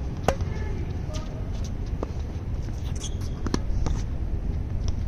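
Tennis rally on a hard court: sharp pops of the ball coming off racket strings and bouncing on the court. The loudest pop comes just after the start and a close pair comes about three and a half seconds in, all over a low steady rumble.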